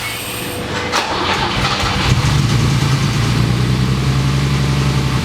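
BMW E30 engine start attempt: the starter cranks, then from about two seconds in a steady engine drone. The engine keeps stalling, and the mechanics are watching the fuel pressure as they try to get it running.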